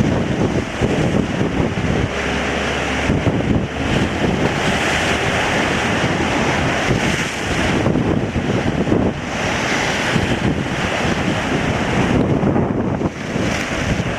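Strong wind blowing steadily and rising and falling in gusts every few seconds, with low rumble from the wind buffeting the microphone.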